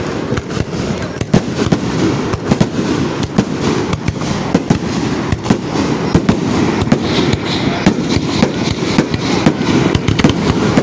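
Fireworks finale barrage: shells bursting in rapid succession, several loud bangs a second over continuous crackling, with no pause.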